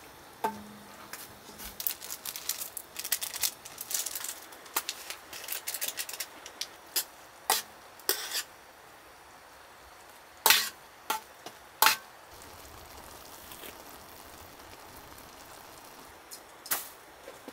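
A utensil clinking and scraping against a stainless steel pot as instant noodles are stirred in simmering water, in quick irregular clicks. About twelve seconds in, the clicking stops and only the quiet, steady hiss of the simmering pot remains, until a few more clicks near the end.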